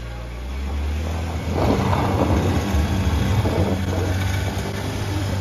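Land Rover LR2's engine pulling under load on a steep climb, joined about a second and a half in by a loud rough scrabbling of the tyres spinning and churning through loose dirt and rock.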